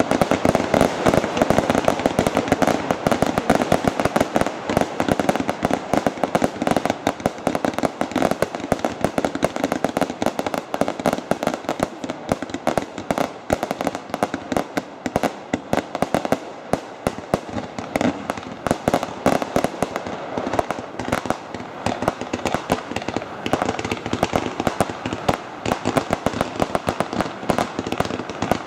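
Fireworks display: a dense, continuous barrage of bangs and crackling pops, many per second, a little louder in the first several seconds.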